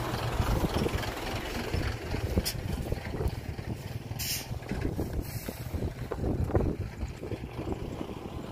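Heavy diesel machinery running with a low, uneven rumble, wind buffeting the microphone. A short hiss comes about four seconds in.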